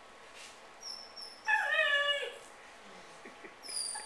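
Puppy mouthing a squeaky dog toy: short high squeaks about a second in and again near the end, and between them a louder squeal that falls in pitch.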